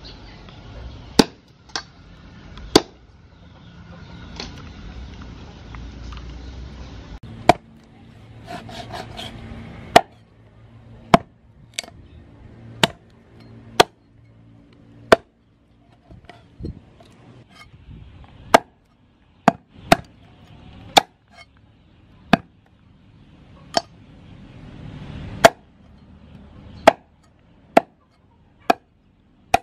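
Meat cleaver chopping an oxtail into pieces on a thick round wooden chopping block: a series of sharp strikes, about one a second, some more widely spaced.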